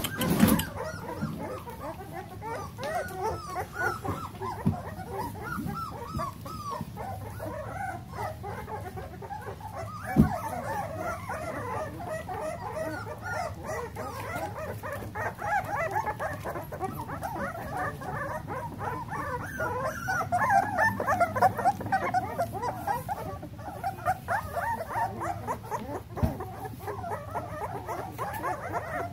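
A litter of young blue nose pit bull puppies crying, with many overlapping short, high squeals and yips that are busiest about two-thirds of the way through. A sharp knock stands out about ten seconds in, with a fainter one near the end.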